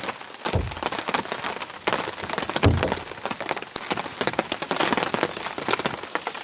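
Steady heavy rain, a dense patter of drops ticking sharply on close surfaces, with a couple of dull low thumps about half a second and two and a half seconds in.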